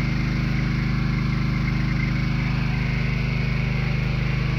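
An engine running steadily at a constant speed, a low even hum that does not change.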